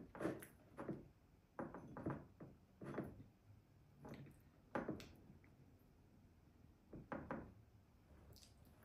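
A fork tapping and scraping against a small ceramic sauce dish as a dumpling is dipped. There are about eight soft, scattered knocks, the last one a little after the middle.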